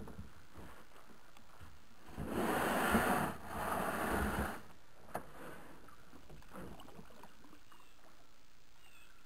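Plastic kayak hull scraping over a gravel bank as it is pushed off into the water, in two pushes lasting a couple of seconds together, followed by a single light knock.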